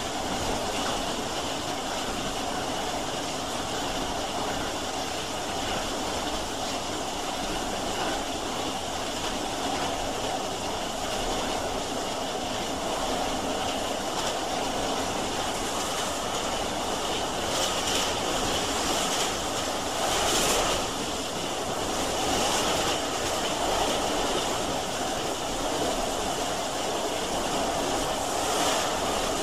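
Steam train running: a steady noisy wash of train sound, with several short louder surges in the second half.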